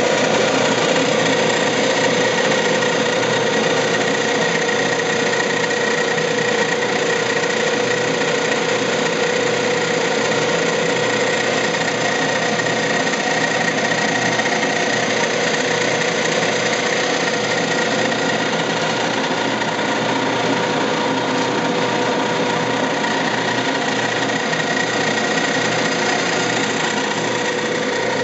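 Penagos UCBE 500 coffee pulper and demucilager running steadily as it strips the pulp and mucilage from coffee cherries: a steady hum over a dense, even mechanical noise.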